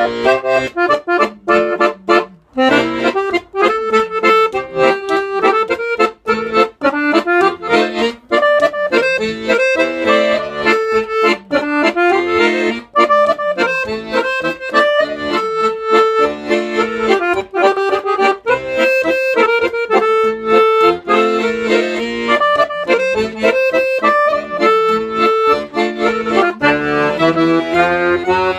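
Guerrini Super-Organtone accordion playing a melody over chords, with a short break in the playing about two seconds in.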